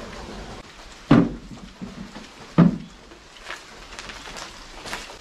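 Two dull wooden knocks about a second and a half apart as a wooden beehive box is handled and set down, followed by a few faint light taps.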